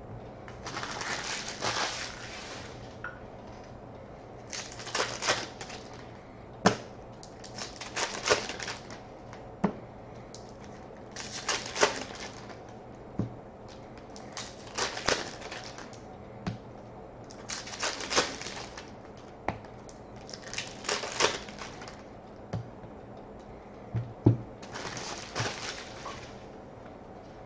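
Trading cards being handled and sorted by hand: about eight short rustling slides of cards against each other, one every three seconds or so, with sharp taps between them as cards are set down on the table.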